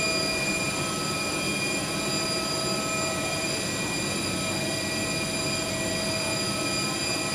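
A vehicle running steadily: an even rushing noise with several thin, steady high whines over it.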